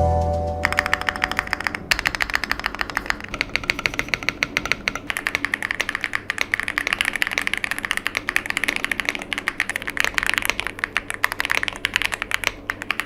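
YUNZII AL71 mechanical keyboard being typed on fast: a dense, steady run of key clicks. It starts just after the last notes of backing music fade out.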